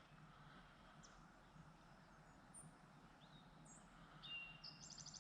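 Faint birdsong over quiet outdoor ambience: a few short high chirps, then a rapid high trill near the end.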